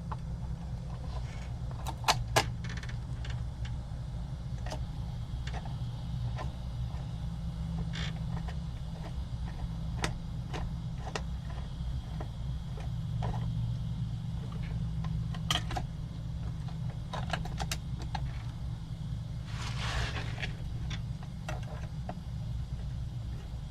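Scattered small metal clicks and clinks of bolts being worked through a steering wheel and horn ring while they are lined up, over a steady low hum.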